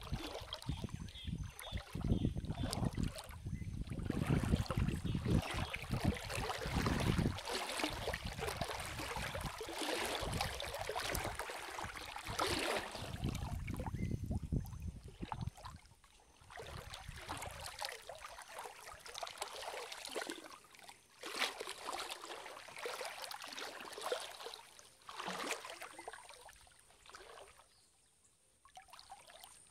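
Water splashing and trickling around a small boat moving along a river, with low buffeting in roughly the first half and quieter lapping later.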